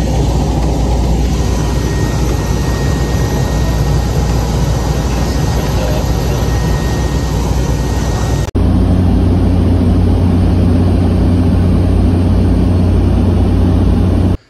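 Engine and propeller drone of a small high-wing propeller plane, heard inside the cabin: a loud, steady noise with a deep hum. It changes abruptly about eight and a half seconds in to a louder stretch of the same drone, with a stronger low hum.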